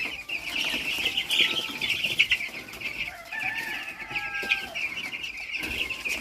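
A large brood of about 150 two-week-old chicks peeping together in a dense, continuous chorus of high peeps.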